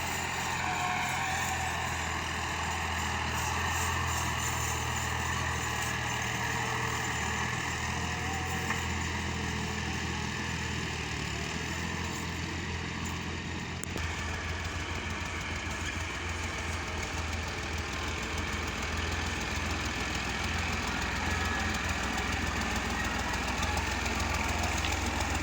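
Belarus tractor's diesel engine running steadily, with an abrupt change in its note about halfway through.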